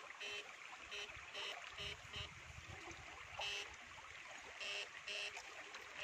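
Short buzzes from a handheld electric fishing shocker being pulsed on and off, several identical quarter-second bursts at uneven intervals, over the sound of flowing river water. A low sloshing of water, as from wading, comes about two seconds in.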